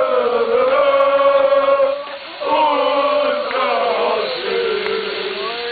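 Football supporters chanting a song together in unison, with long held sung lines and a short break for breath about two seconds in.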